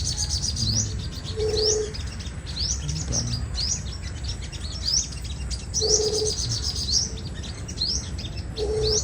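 A flock of five-colour sunbirds chirping: quick, high, rising notes, one after another. A short low steady note comes three times, about every three to four seconds.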